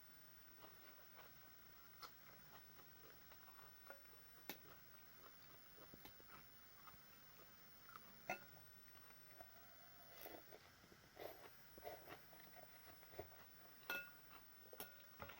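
Very quiet eating of a bowl of noodle soup: faint chewing, with a few light clicks of utensils against the bowl and a cluster of soft eating noises near the end.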